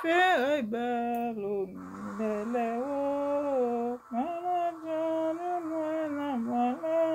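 A single voice singing a slow, wordless melody: long held notes joined by sliding pitch changes, with a short break about four seconds in.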